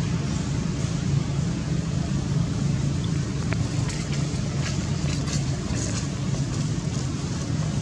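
Steady low background rumble, like distant engine or road traffic, with a few faint short rustles or ticks in the middle.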